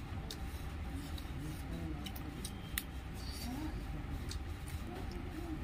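Scattered small clicks and snaps of fingers picking meat from a cooked goat head's bones and of chewing, over a steady low hum, with one sharper click about halfway through.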